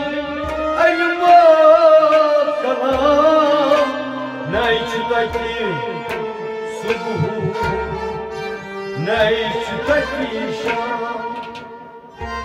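Kashmiri Sufi music: tabla drumming, with low strokes that bend down in pitch, under a wavering melody line, with no clear sung words.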